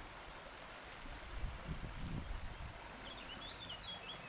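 Water hissing and pattering as a pressurised camping solar shower sprays from its trigger nozzle onto a pebbly riverbank. A small bird chirps several times near the end.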